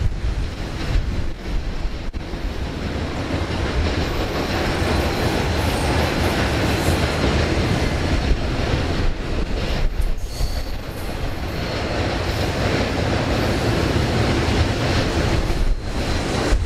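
A Union Pacific freight train's tank cars and autorack cars roll past close by, with steady wheel-and-rail rumble and irregular clicking of wheels over the track. A brief thin, high wheel squeal comes in about ten seconds in.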